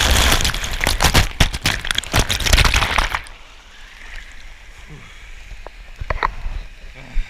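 Water-slide splashdown: a rider shoots out of the tube into the shallow runout lane, loud splashing with spray on the camera for about three seconds. It then drops suddenly to a quieter steady rush of water as the rider glides along the lane.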